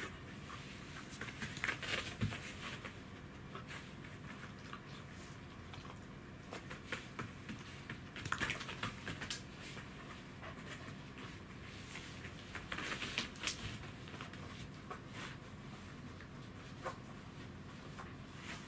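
Pembroke Welsh corgi scrabbling across a hard floor: claws clicking and the body scraping in short bursts, about three main bouts with scattered single clicks between. The dragging comes from hind legs weakened by degenerative myelopathy.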